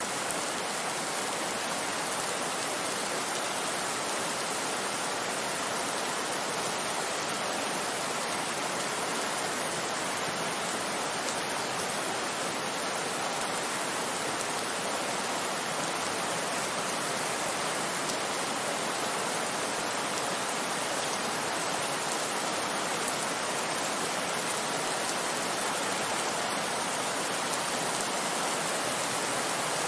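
Heavy rain falling, a dense, steady hiss with no single drops or thunder standing out.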